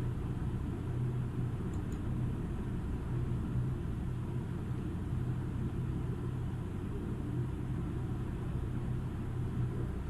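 Steady low background rumble with a constant hum, unchanging throughout; no speech.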